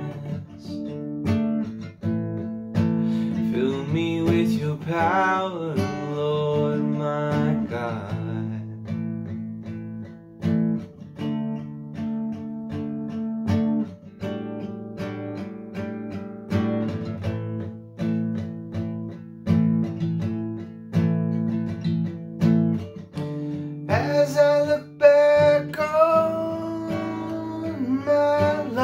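Acoustic guitar strummed in a steady rhythm of chords. A man's singing voice rides over it for the first several seconds and again near the end, with guitar alone in between.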